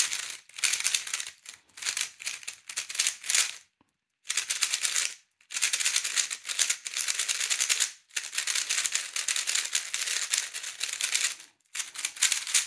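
MoYu Super Weilong magnetic 3x3 speedcube being turned fast by hand: rapid clicking and clacking of its plastic layers, in bursts of one to three seconds with short breaks between them.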